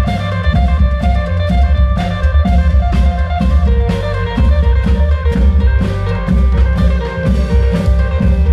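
Klong yao (Thai long drum) band playing through an amplified sound system: deep drum beats and percussion strikes on a steady beat under a pitched melody line.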